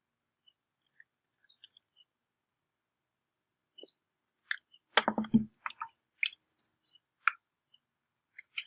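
Bottles and caps being handled on a tabletop: a few faint ticks, then about five seconds in a thump of something set down, followed by a quick run of sharp plastic clicks and knocks.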